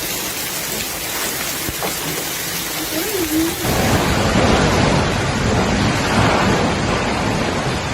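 Heavy storm downpour, a dense steady hiss of rain or hail pelting surfaces. About three and a half seconds in it grows louder and fuller.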